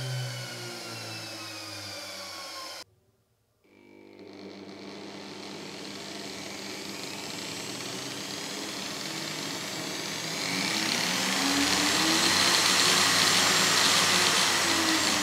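A washing-machine universal motor winding down, its whine falling in pitch. After a brief cut, an angle grinder starts slowly on a TRIAC speed controller, and its whine grows steadily louder and higher as the knob is turned up, running loudest from about eleven seconds in.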